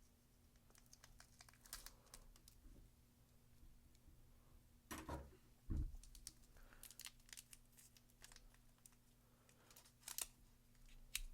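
A foil Pokemon booster pack wrapper being torn open and handled, with faint scattered crinkling and rustling. Two louder knocks come about five seconds in, and a short burst of crinkles near the end.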